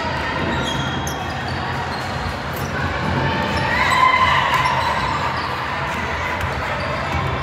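Basketball game in a gym: a ball bouncing on the court over the echoing background noise of the hall, with a louder swell about four seconds in.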